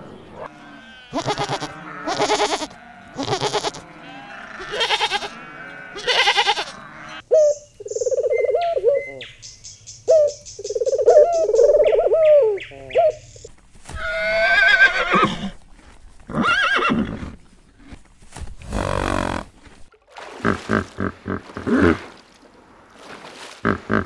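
A string of different animal calls. In the middle stretch, domestic pigeons give several seconds of low, rising and falling coos.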